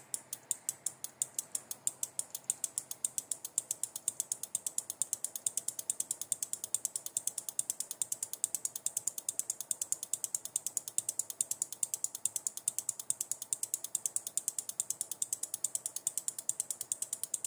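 Small relays on an ECU test bench clicking rapidly and evenly, several clicks a second, as the engine ECU's injector and ignition outputs switch them on and off: the ECU is firing those outputs.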